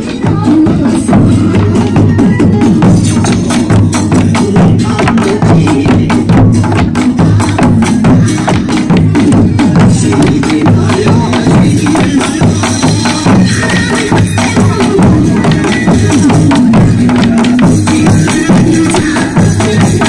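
Loud Korean folk drumming in a fast, driving rhythm: barrel drums (buk) on wooden stands and hand-held drums struck with sticks, with music.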